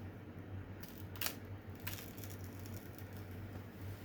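A few soft rustles and a crackle of heat-transfer paper being handled and peeled off a freshly pressed T-shirt, the clearest about a second in, over a low steady hum.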